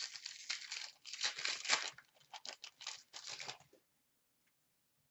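Foil wrapper of a 2016-17 Upper Deck Series 1 hockey card pack being torn open and crinkled by hand, a rustling run that stops about a second before the end.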